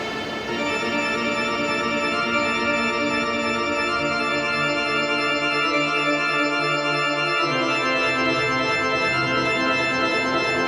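Electronic music breakdown: sustained organ-like keyboard chords with no drums, a low bass note coming in about four seconds in and the chord shifting about halfway through.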